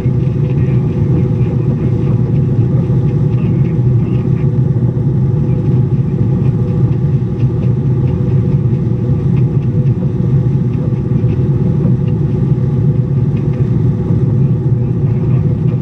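A sailing barge's inboard engine idling, a steady low hum that does not change.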